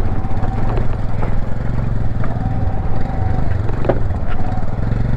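Motorcycle engine running steadily at low speed while riding over a loose, rocky gravel track, with a few sharp knocks from stones under the wheels.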